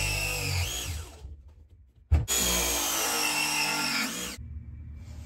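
Battery-powered pipe press tool crimping copper press fittings: its motor whine ends about a second in, then after a click a second press cycle runs for a little over two seconds. The pitch lifts and drops briefly near the end of each cycle as the jaws finish the press.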